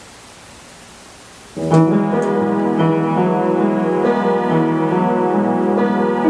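Faint room hiss, then about a second and a half in an upright piano starts playing a solo instrumental piece in sustained chords, with no singing.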